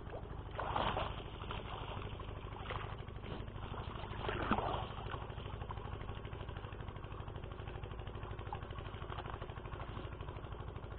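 A small engine idling steadily: an even low rumble with a fine regular beat. There are brief fainter noises over it about a second in and about four and a half seconds in.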